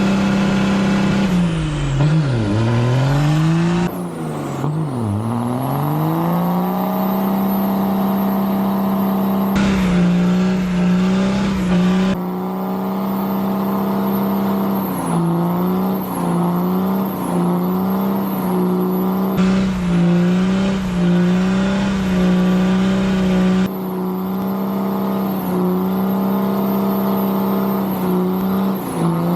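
Vehicle engine held at wide-open throttle during a burnout, running at a steady high pitch; twice near the start it bogs down sharply and climbs back up to speed.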